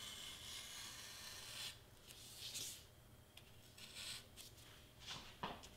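Craft knife blade being drawn through a sheet of black board along a traced outline: a faint steady scratching at first, then a few short separate scrapes.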